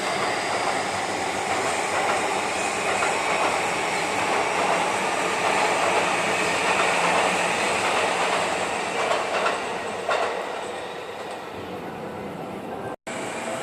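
Train running on its rails: a steady rumble and rush of wheel noise with a faint high squeal, easing off about ten seconds in. The sound cuts out for an instant near the end.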